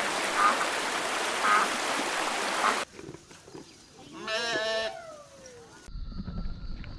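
A pig's short calls over a steady hiss, then after a cut a single wavering sheep bleat about four seconds in, lasting just under a second.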